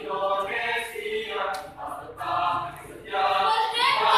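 Mixed choir of boys' and girls' voices singing an Indonesian national song a cappella, in phrases with brief breaks between them.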